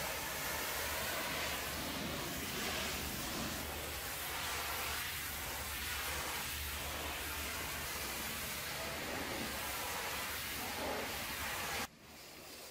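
High-pressure washer jet hissing steadily against the stainless steel tank of a tanker truck, with a steady low hum underneath. It cuts off abruptly near the end.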